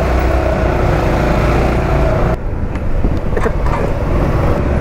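Honda Forza 350 scooter's single-cylinder engine running as it rides off, with wind rumbling on the microphone. The sound changes abruptly a little over two seconds in.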